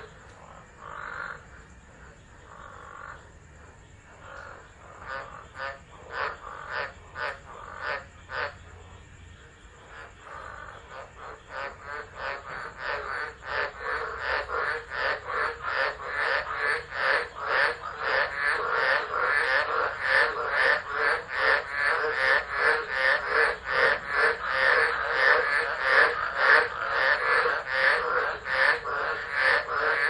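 Tropical frogs calling in a chorus during a wet-season storm: short repeated calls, scattered and quieter at first, then building about a third of the way in to a dense, loud chorus of several calls a second that is loudest near the end.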